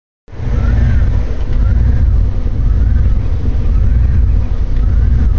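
Jeep Grand Cherokee 5.9-litre V8 idling roughly, with a faint whine that rises and falls about once a second.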